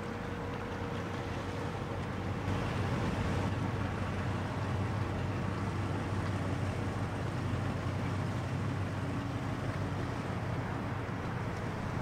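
Steady low rumble and hum of a 1,000-foot Great Lakes bulk freighter's engines while it is under way, growing a little louder a couple of seconds in.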